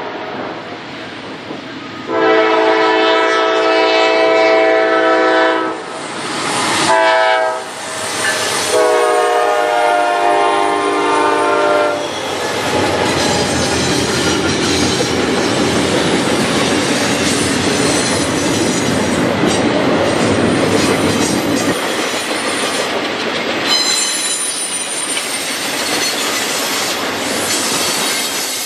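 Norfolk Southern freight locomotive horn sounding a long blast, a short blast and a final long blast, the close of the grade-crossing signal, ending about twelve seconds in. The locomotives and double-stack intermodal cars then pass close by with wheels clacking over the rail joints, and a high wheel squeal comes in near the end.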